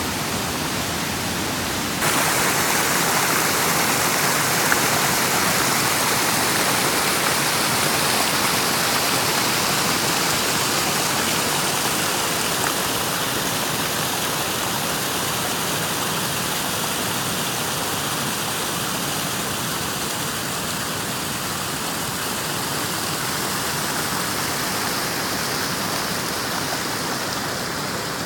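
Waterfall: a steady, even rush of falling water that gets suddenly louder about two seconds in.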